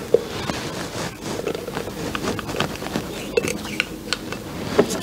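Sugar and starch pouring into a Thermomix's stainless steel mixing bowl of milk: a rustling, pattering trickle with many light clicks and taps.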